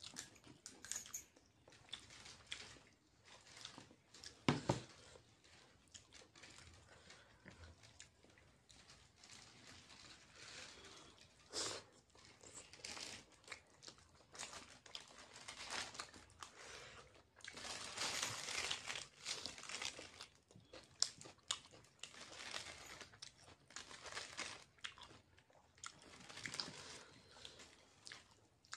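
A man eating noodles and chicken lollipop with his fingers, heard close up: chewing and mouth sounds in irregular short bursts, loudest about four and a half seconds in.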